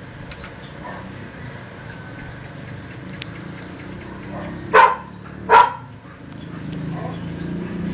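A dog barks twice, under a second apart, a little over halfway through. A low rumble builds near the end.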